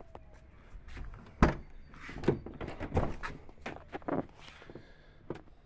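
Ford F-150 truck door being opened by hand: a sharp clunk about a second and a half in, then a run of clicks and knocks as the door is handled and swung open.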